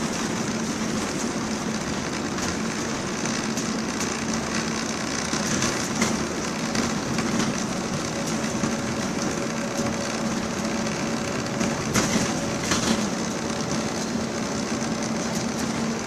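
Interior of a moving MAN 18.240 single-deck bus: the diesel engine runs at a steady note under road noise and body rattles, with a few sharp knocks from bumps about six and twelve seconds in.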